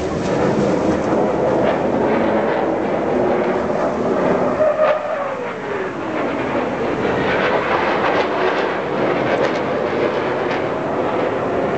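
Thunderbirds F-16 fighter jets flying past with a loud, steady rush of jet noise; about five seconds in, a tone falls in pitch over two seconds as a jet passes.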